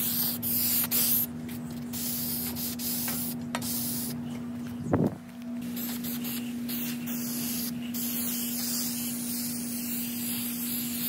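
Aerosol can of 3M headliner spray adhesive spraying onto a foam headliner board in stop-and-start passes, a hiss that breaks off and resumes several times. A steady low hum runs underneath, and there is a brief knock about five seconds in.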